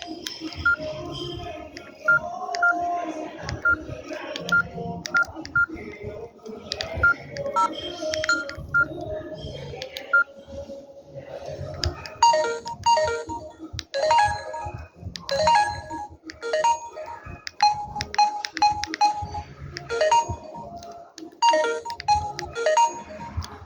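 Samsung GT-C3053 ringtone melodies playing through the phone's small speaker as short electronic notes, with the tune changing about halfway through.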